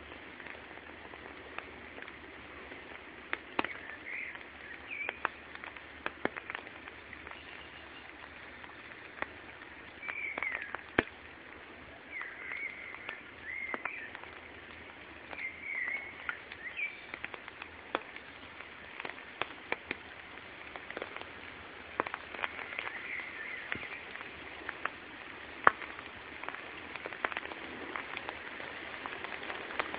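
Water dripping from wet trees after rain, single drops ticking at irregular moments, one sharp drop louder than the rest near the end. A small bird chirps short phrases on and off over a steady background hiss.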